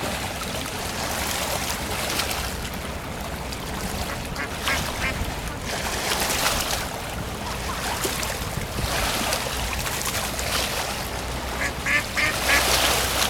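Short bird calls, a few about five seconds in and a quick run near the end, over splashing water and a boat's low steady rumble.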